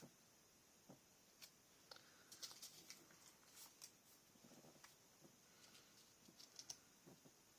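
Faint scattered taps and short rustles of paper and chipboard pieces being handled and set down on a craft table, over a steady faint hiss.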